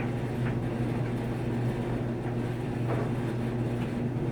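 A new Samsung clothes dryer running with a steady low hum, with a few faint rattling clicks now and then. The intermittent rattle sounds like something loose or metal inside, though the owner has found nothing loose.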